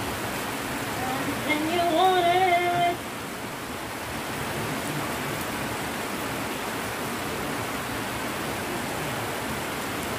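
Steady rain falling on garden plants and the ground, an even hiss. From about one and a half seconds in, a brief wavering pitched call rises over the rain for about a second and a half and is the loudest sound.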